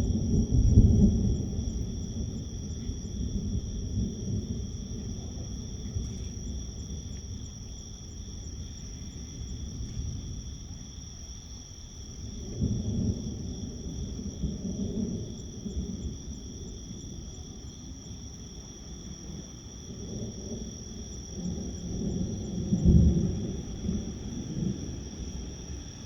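Distant thunder rolling in low rumbles: one swell at the start, another about halfway through and a louder one near the end. Insects chirr steadily in the background.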